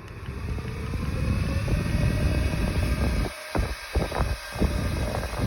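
Small electric motor of a portable fan running, its whine rising slowly in pitch as it speeds up, with the blades' airflow buffeting the microphone. A few seconds in the sound dips several times with short clicks.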